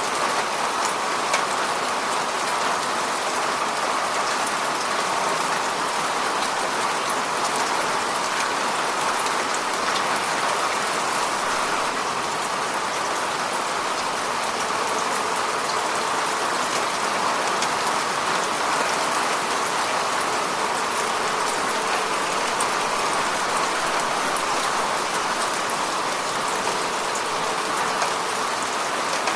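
Steady rain falling: a dense, even hiss with many small drop ticks scattered through it.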